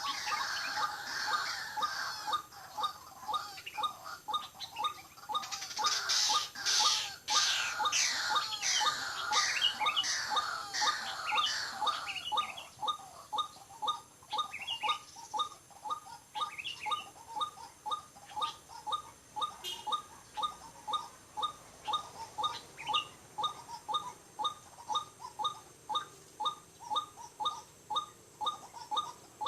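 White-breasted waterhen calling: a monotonous call repeated about twice a second throughout. A louder burst of quickly falling, higher-pitched calls runs from about six to twelve seconds in.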